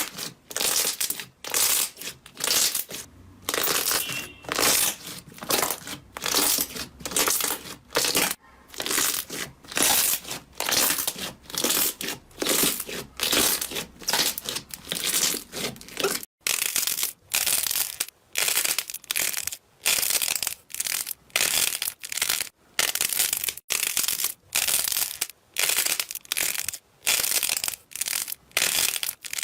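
Slime being pressed and squeezed by hand in repeated noisy squishes, a little over one a second, with a brief break about 16 seconds in.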